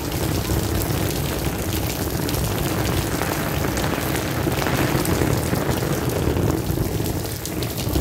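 Heavy rain pouring steadily, with water streaming off an edge and splashing onto wet tiles and garden plants.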